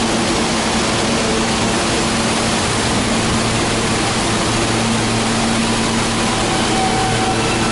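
New York City subway R train, R160 cars, moving slowly along the platform: a steady loud rumble and rail noise, with faint motor whine tones coming in near the end.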